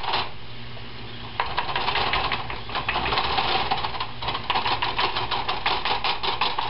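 A fork pricking pizza dough on a pan, its tines tapping through the dough in rapid, uneven strokes several times a second. This is docking the crust so heat can rise through it without the dough puffing up. The tapping pauses briefly near the start and picks up again about a second and a half in.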